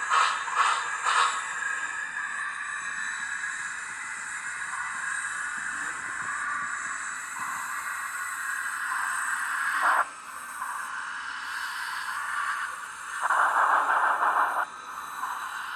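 Steam locomotive sound effects from the onboard sound system of an MTH HO-scale Union Pacific 4014 Big Boy model, played through its small speaker. Quick even chuffs come in the first second, then a steady hiss, with a short louder burst about ten seconds in and a longer one near the end.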